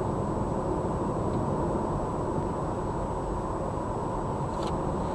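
Steady road and engine noise inside a moving car's cabin, with a thin constant high whine over it. A brief click about four and a half seconds in.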